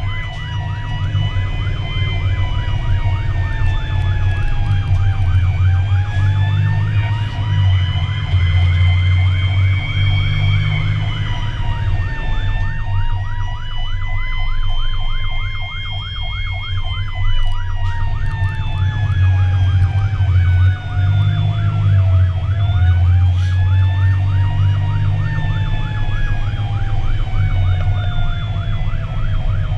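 Fire engine siren sounding as the truck drives, heard from inside the cab: a slow wail that rises and falls over several seconds, together with a fast warbling tone, over the heavy low rumble of the engine and road.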